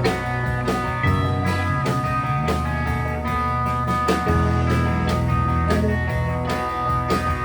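Live rock band playing an instrumental passage: electric guitar over bass and drums, with a steady beat.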